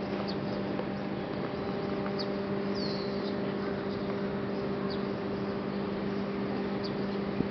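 Outdoor street ambience: a steady low hum with a few faint, short high chirps scattered through it.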